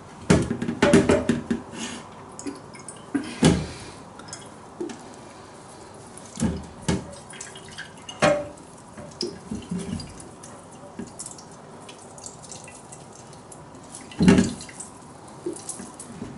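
Liquid dripping and trickling through a cloth strainer into a container, with scattered knocks and clinks of kitchen utensils, the loudest near the start, about three and a half seconds in, and near the end.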